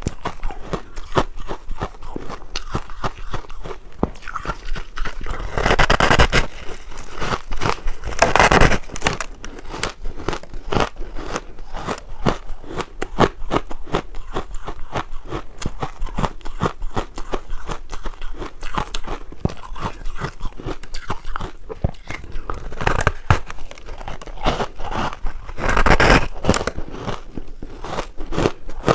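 Close-miked crunching and chewing of a block of pink frozen crushed ice, a dense crackle of ice breaking between the teeth. A few louder crunching bites stand out, two in the first third and two in the last third.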